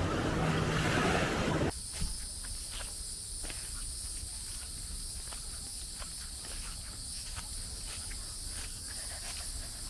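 Surf and wind noise that cuts off abruptly just under two seconds in, giving way to a steady, high-pitched insect chorus with scattered light ticks.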